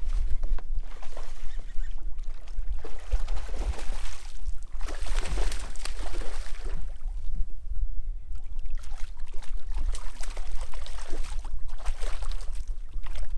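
A hooked bass thrashing at the surface beside a kayak: two long bouts of splashing water, with a short lull in the middle. A steady low rumble of wind on the microphone runs underneath.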